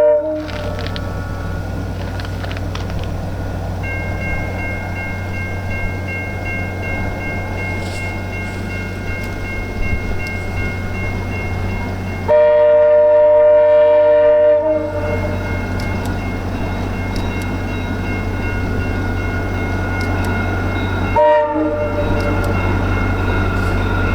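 Locomotive horn of VIA Rail's Canadian passenger train sounding a chord in a horn show: a blast ending right at the start, one long blast of about two and a half seconds about twelve seconds in, and a short toot near the end. Under it runs the steady rumble and rail noise of the train rolling by, with a steady high whine joining about four seconds in.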